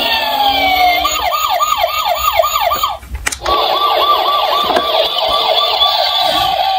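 Electronic emergency-vehicle siren: a long wail winding down in pitch, then switching to a fast yelp of about three to four sweeps a second, broken by a short gap about three seconds in.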